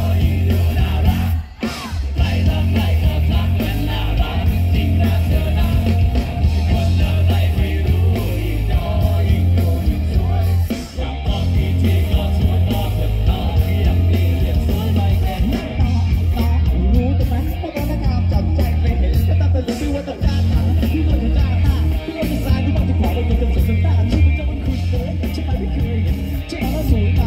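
Live rock band playing a song with a lead singer: electric bass, electric guitar, keyboard and drums under the vocals, heard through the PA.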